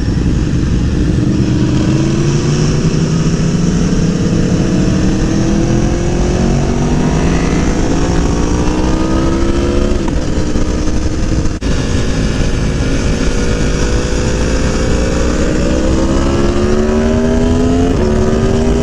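Aprilia Tuono's V4 engine pulling hard on track, its pitch rising steadily for several seconds, dropping about halfway and again near the end as the gears change, over a constant rush of wind.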